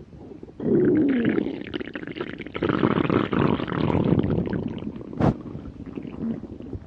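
A person's empty stomach growling in a long, loud gurgling rumble with gliding squeaky tones. It starts suddenly about half a second in and tapers off after about five seconds. A sharp click comes about five seconds in.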